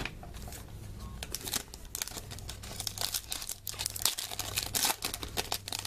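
Foil wrapper of a 2014 Panini Elite football card pack crinkling and tearing as hands pull it open, with a dense run of crackles from about two seconds in.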